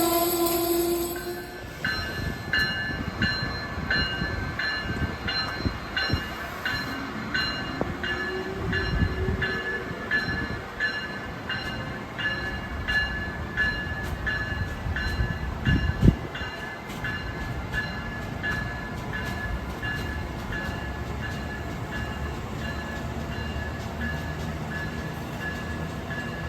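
A passenger train's horn sounding and cutting off about a second in, then the train's bell ringing steadily at about two strokes a second over rolling train noise. A faint rising whine comes partway through, and there is a single sharp thud about two-thirds of the way in.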